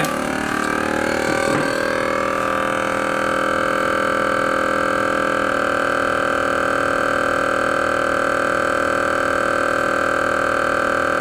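The vacuum pump of a CASO VR 390 advanced vacuum sealer drawing the air out of a sealing bag. It runs with a steady hum whose pitch rises over the first two seconds or so and then holds, changing slightly about halfway through. It runs quite gently.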